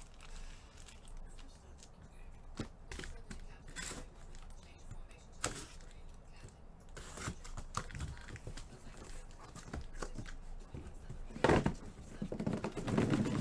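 A sealed trading-card box being opened by hand: cardboard and plastic wrap torn and crinkled in short scattered rustles and clicks, with one louder knock near the end.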